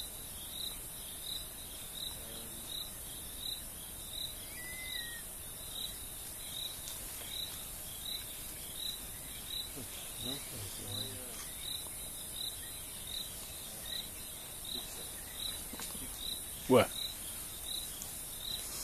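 A night insect chirping steadily, short high pulses about three every two seconds. Near the end comes a single short, sharp sound, louder than the chirping.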